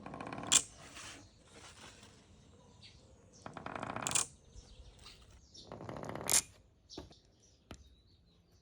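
Glass marbles rolling down a marble run one after another. Each makes a short rattle that swells and ends in a sharp clack, three times, with a couple of single ticks in between.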